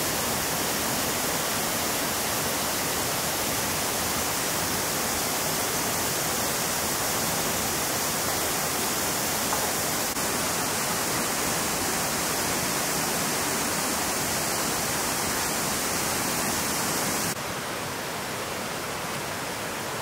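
Steady rushing of a mountain stream over rocks, dropping to a quieter level about 17 seconds in.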